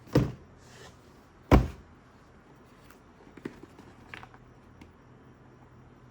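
Two dull thuds a little over a second apart, then a few light taps and clicks: product boxes being set down and handled for unboxing.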